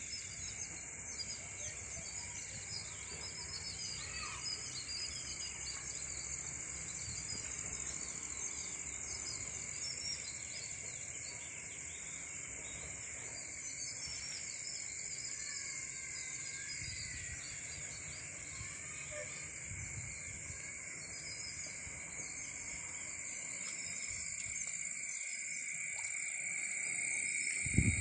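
Dusk ambience of insects trilling steadily at two high pitches, with many scattered chirps over it. A short low thump comes right at the end.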